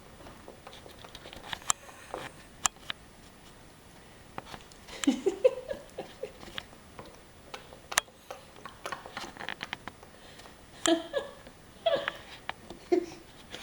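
A pet chewing food close to the microphone: a string of sharp crunching clicks, with a few short pitched sounds about five seconds in and again near the end.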